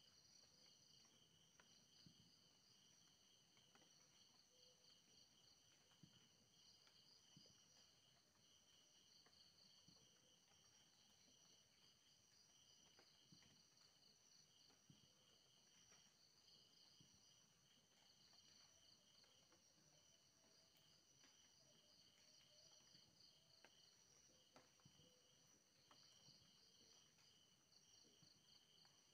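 Near silence with faint night insects chirping steadily at several high pitches, and a few faint scattered clicks.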